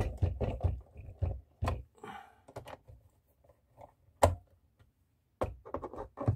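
Irregular clicks and knocks of an induction stove's plastic casing being handled and fitted back together, with a louder sharp click about four seconds in and a run of quicker clicks near the end.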